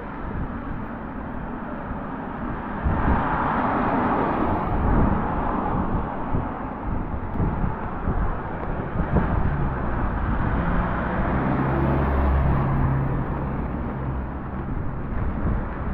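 Wet-street traffic ambience: a car passes with a swell of tyre hiss on the wet road a few seconds in, and a vehicle engine hums steadily later on, over wind rumbling on the microphone.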